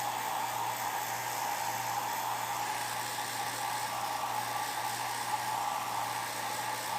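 Hair dryer running steadily: a constant rush of blown air over a low motor hum.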